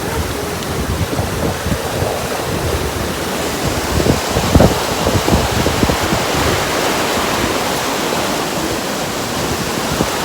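Steady rush of fast-flowing mountain water, with wind buffeting the microphone in low gusts that are strongest about four to five seconds in.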